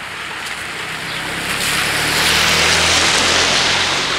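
A small hatchback car driving past close by on a wet road: the tyres hiss on the wet asphalt over a low engine hum, swelling to loudest about two to three seconds in as it passes.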